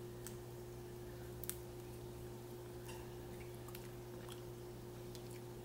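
Faint, scattered clicks and crackles of crawfish shells being peeled apart by hand, over a steady low hum.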